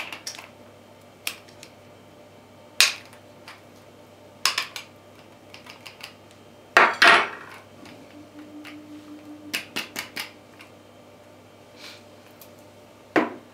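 A metal teaspoon and a plastic-capped spice jar clinking and knocking against a china bowl and a wooden table. The sharp knocks are scattered, with the loudest and longest clatter about seven seconds in, a run of small taps around ten seconds, and one more sharp knock near the end.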